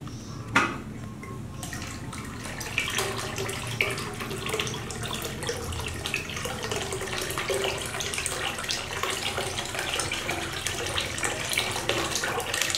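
Water poured in a steady stream from a metal kettle, splashing into a plastic basin already full of water. The pouring starts about two seconds in, after a single sharp knock.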